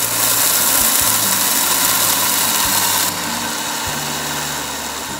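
Electric mixer grinder dry-grinding rice, millets and pulses into flour: a loud, steady whirring grind. The sound steps down a little about three seconds in and then runs on.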